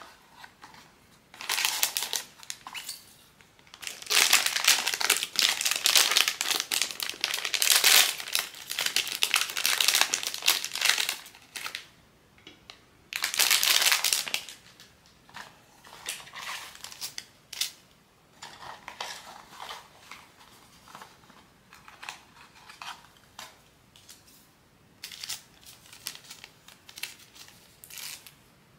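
Blind-box packaging being handled and unwrapped: long stretches of crinkling wrapper, then lighter rustles and small ticks from about halfway on.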